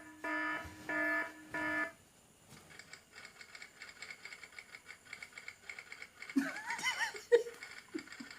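Four short electronic beeps in quick succession, then a faint rapid ticking, then a brief high, warbling, squeaky sound like a cartoon giggle effect about two-thirds of the way in.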